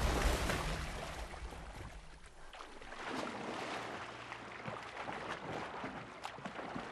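Sea water splashing and sloshing as killer whales thrash at the surface: a heavy splash at the start fades over about two seconds, then choppy water keeps slapping and splashing in short bursts.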